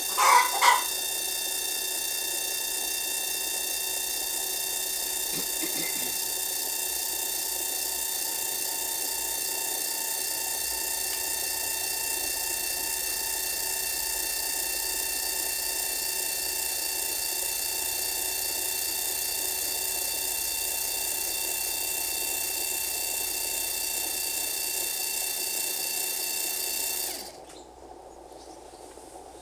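Electric linear actuator motor whining steadily as it slides the coop's wooden pop-hole door open, then stopping abruptly about 27 seconds in. A brief, louder double sound comes right at the start.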